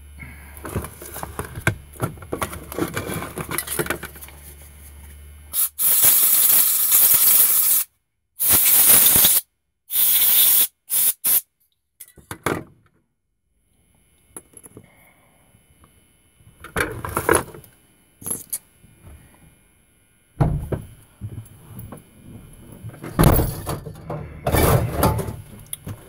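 Aerosol spray can fired into a lock cylinder to flush grime out of the seized detent's bore: one long burst of about two seconds, two shorter bursts, then a few quick puffs. Small clicks and rattles of the cylinder being handled come before and after.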